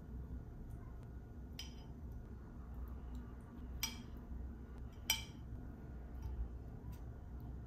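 Tongs tapping against a glass food container: three light clinks, each with a brief ringing, over a faint low hum.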